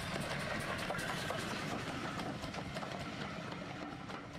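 Steam train running with a quick, regular beat, fading away near the end.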